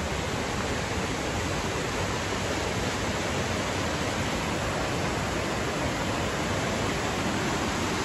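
Small river rushing and tumbling over rocks in a little cascade, a steady, even rush of water.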